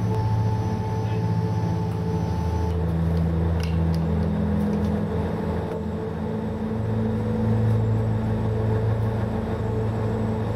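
Fishing trawler's diesel engine running with a steady low drone, its pitch shifting slightly about a quarter of the way in.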